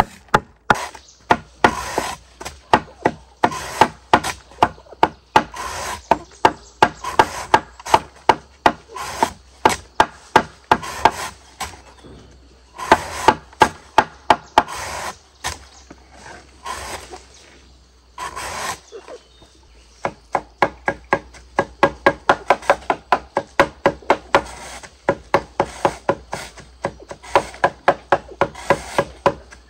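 Knife chopping repeatedly on a wooden chopping board, about two to three strokes a second, with a few short pauses and a faster, denser run of strokes in the last third.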